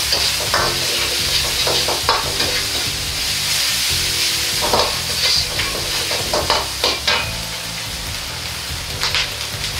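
Ground meat sizzling in a wok as a metal ladle stirs it, scraping and clanking against the wok about once a second, over a steady low rumble from the wok burner. The ladle strokes stop at about seven seconds in, while the sizzle goes on.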